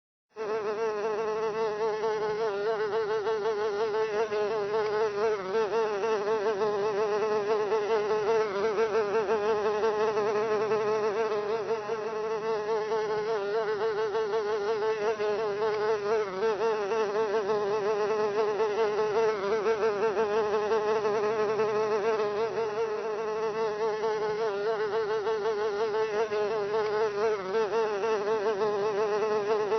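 A fly buzzing without a break, its pitch wavering slightly up and down.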